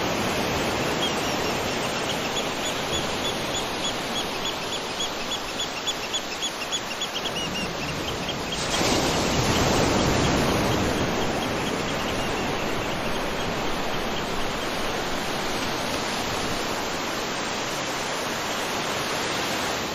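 Waterfall rushing steadily. A bird repeats a quick, even run of high chirps through the first half. The water grows louder about eight and a half seconds in.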